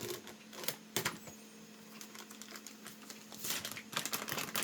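Light clicks and crackles of plastic being handled: a couple of sharp clicks about a second in, then a denser run of clicking and crinkling near the end, over a faint steady hum.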